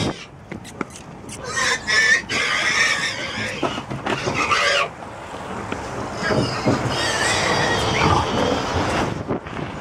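Pigs squealing and grunting inside a crowded livestock transport trailer, in harsh cries that come and go, with scattered knocks.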